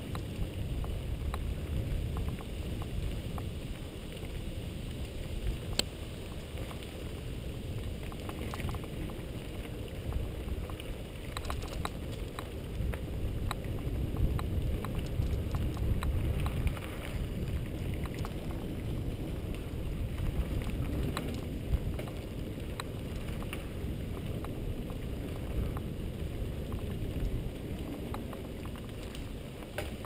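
Mountain bike rolling over a rough dirt trail, heard from a helmet-mounted camera: steady wind rumble on the microphone with scattered clicks and rattles from the bike over bumps.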